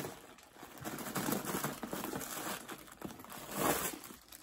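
Crumpled white paper stuffing crinkling and rustling as it is pulled out of a handbag, loudest near the end.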